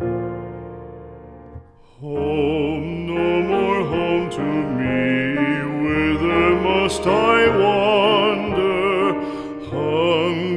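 Music: a piano chord rings and fades, then about two seconds in a singer with strong vibrato comes in over piano accompaniment in a slow ballad.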